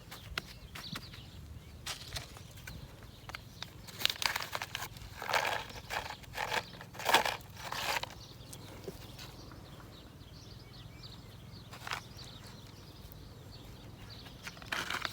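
Intermittent scraping and crunching from hands working garden soil while planting bean seeds. It comes as scattered clicks and a cluster of louder bursts from about four to eight seconds in, with one more near the end.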